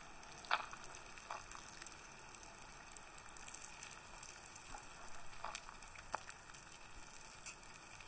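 Fingers pressing and digging into the pulp of a halved pink grapefruit: a fine, wet crackling of juice sacs bursting, with a few louder pops.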